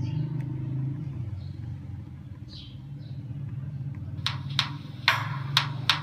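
A steady low background rumble. About four seconds in, a track from the memory card starts playing through the VGOTEL i550 keypad phone's small loudspeaker, opening with a run of sharp percussive hits.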